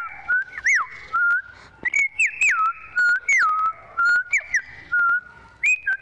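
A girl imitating bird song with her mouth: clear whistled notes that swoop down from high to lower pitch and settle briefly on a steady lower note, repeated in a rapid string of phrases, with sharp clicks at the start of many notes.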